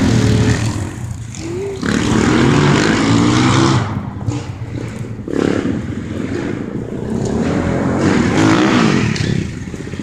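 Small off-road vehicle engine revving as it rides around a dirt track, rising and falling in pitch and swelling louder then fading several times as it passes.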